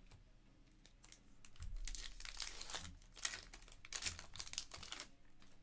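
A Panini Prizm basketball multi-pack wrapper being torn open and crinkled by hand. The crinkling starts about a second and a half in and comes in several bursts until near the end.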